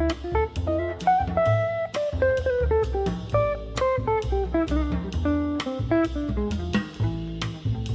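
Upbeat background music: a melody over a bass line and a steady drum beat.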